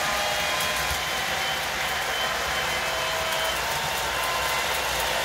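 O gauge model train running around its track: a steady whirring, hissing rumble of motor and wheels on the rails, with faint brief tones scattered through it.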